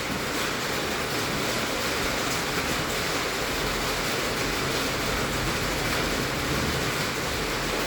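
Heavy rain drumming steadily on a tin roof: a dense, even hiss of countless drops striking the metal sheets.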